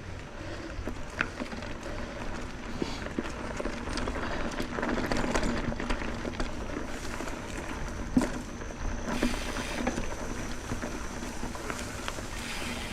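Mountain bike rolling along a dirt trail: tyres on dirt and gravel, with many small clicks and rattles from the bike and a low rumble of wind on the helmet-mounted camera's microphone.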